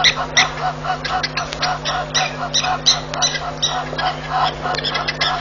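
Continuous chorus of short animal calls repeated rapidly, about three a second and overlapping, over a steady low electrical hum.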